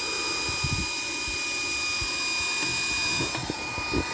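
Handheld induction bolt heater running. It makes a steady fan-like hiss with several constant high-pitched whine tones, and a few light knocks come near the end. The highest part of the hiss drops away a little after three seconds in.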